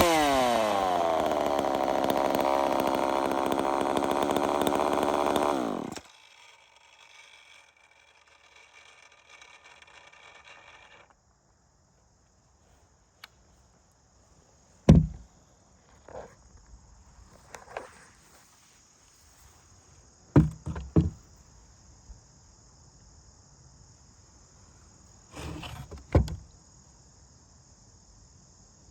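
Two-stroke chainsaw on its first test run, dropping from a rev to a steady idle and then shut off about six seconds in. After that, crickets chirp steadily under a few short knocks and thumps.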